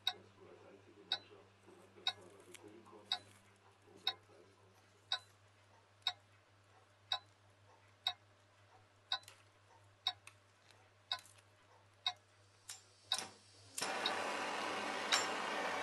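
A clock ticking about once a second over a faint low hum. A few quicker clicks follow, and then, about 14 seconds in, a handheld gas blowtorch lights and runs with a loud, steady hiss.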